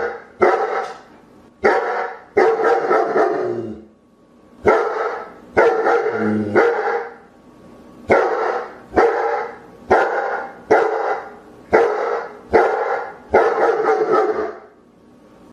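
German Shepherd barking: a series of about a dozen loud, deep single barks, roughly one a second, with a short pause about four seconds in.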